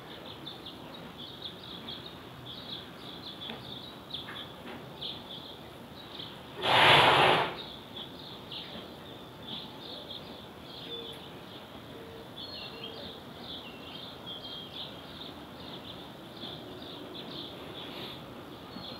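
Birds chirping with many short, high calls over a steady outdoor background. About seven seconds in, a loud rush of noise lasts about a second.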